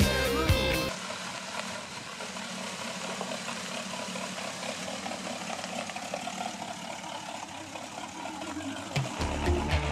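A rock song cuts off about a second in. A hot rod roadster's engine then runs at low speed as the car rolls slowly past, and the music comes back in near the end.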